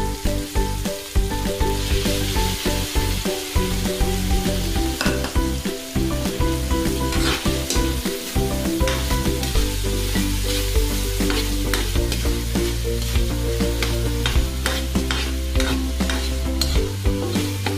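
Metal spatula stirring and scraping ground pork, garlic, onion and tomato around a wok, with many short scrapes and clicks of metal on the pan, over a light frying sizzle.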